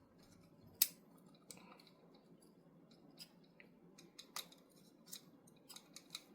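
Small metal clicks and light scraping as screws are turned into a Gasser Montenegro revolver's parts, with one sharp click about a second in and a quicker run of clicks in the last two seconds.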